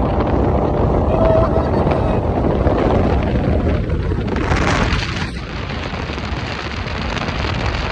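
Wind buffeting the microphone on a fast-moving boat: a steady heavy rumble, with a louder rushing burst about four and a half seconds in and another near the end.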